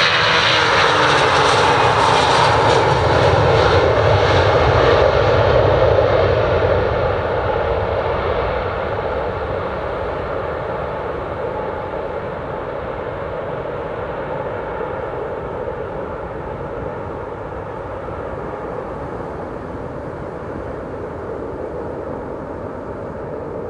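Airbus A340-300 airliner's four CFM56 turbofan engines at takeoff power as it lifts off and climbs away: a loud rumbling jet noise whose pitch drops in the first few seconds, then fades steadily as the plane recedes.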